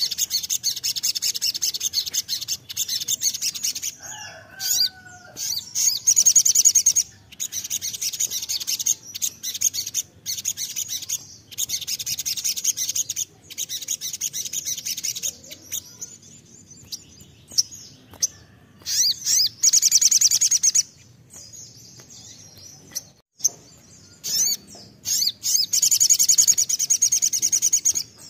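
Male olive-backed sunbird in full song: repeated high-pitched rapid trilling bursts of a few seconds each, broken by pauses and short single notes.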